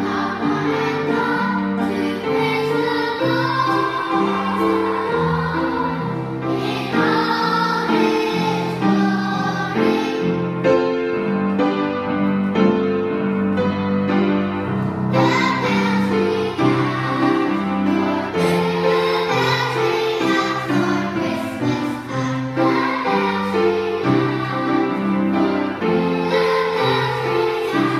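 A children's choir singing a song together with piano accompaniment, in sustained, steady phrases.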